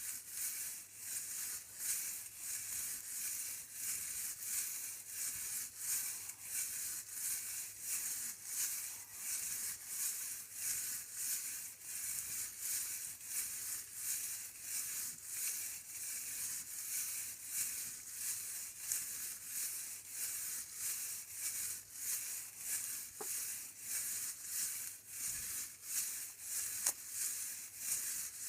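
Steady rhythmic rattling, about two shakes a second, each a short dry hiss of small loose bits.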